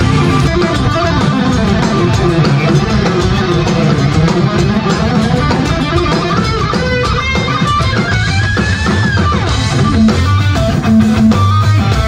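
Live rock-fusion band: electric guitar playing a fast lead line over a drum kit and low bass notes, with rising string bends about two-thirds of the way through.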